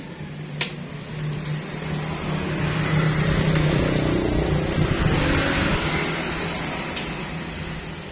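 A motor vehicle passing by, growing louder to a peak a few seconds in and then fading away, over a steady low hum. Two sharp clicks are heard, one near the start and one near the end.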